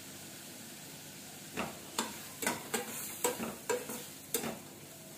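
Metal spatula stirring and scraping a spiced peanut-and-onion mixture around a stainless steel kadai, over a steady sizzle of frying. From about a second and a half in the scrapes come quickly, two or three a second.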